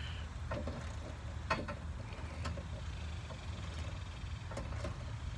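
Socket ratchet wrench clicking in a few separate strokes as it is worked on a compressor mounting bolt, over a steady low rumble.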